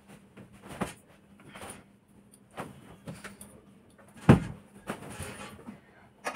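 Clothes and bedding being gathered up and swung about, with scattered short rustles and one louder soft thump about four seconds in.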